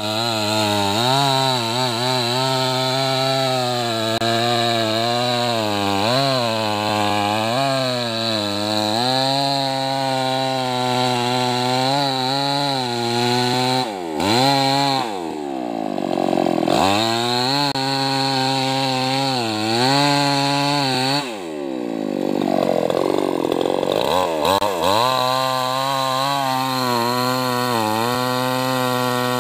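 Tuned-up New West 588 two-stroke chainsaw cutting into a hard, heavy tree trunk at high revs, its pitch wavering under load. Twice, about halfway and again later on, the engine note drops sharply and then climbs back up as the saw revs again.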